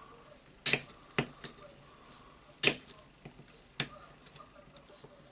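Steel pliers clicking against a spring ring on a demolition hammer's tool holder while it is being pried off: a handful of sharp, separate metal clicks, the loudest about a second in and again near the three-second mark.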